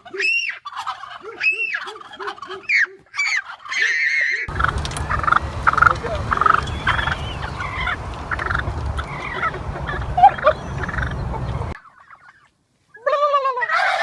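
Turkeys gobbling and calling in repeated bursts, at times over a steady low rumble. The sound cuts out for about a second near the end, then another rising turkey call follows.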